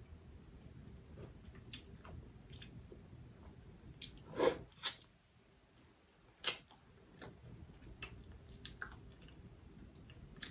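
Boiled crawfish being peeled by hand and eaten: quiet scattered clicks and cracks of the shells with wet squishy sounds and chewing, and three louder wet snaps a little before and after the middle.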